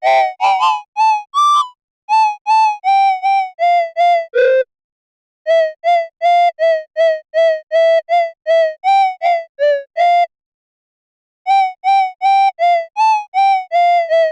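Background music: a simple melody of short, separate pitched notes, about three a second, with a few brief pauses.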